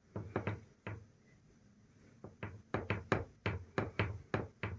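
A series of sharp knocks: a few spaced ones in the first second, then a quick, even run of about four or five a second through the second half.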